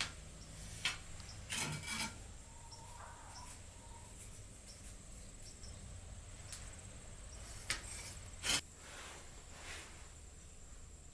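A few short scrapes and knocks from materials or tools being handled, over a steady low hum and a faint high whine.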